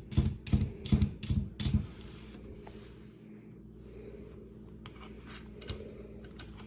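A metal sight press being handled and set up on a workbench: a quick run of about six clunks and clicks in the first two seconds, then faint rubbing and handling noises.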